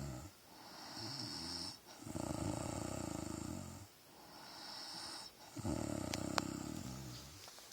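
A sleeping woman snoring: long, low rattling snores alternate with breathy, hissing breaths, about one snore every three and a half seconds, three in all. A small click comes about six seconds in.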